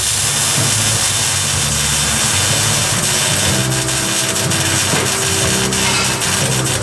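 Arc welding on a steel exhaust pipe: a steady crackling hiss, under background music with a bass line that changes in steps.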